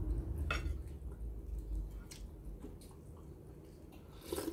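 Someone eating soup with a spoon: soft chewing and slurping, with a dull bump at the start and a few light clicks of the spoon against the plate.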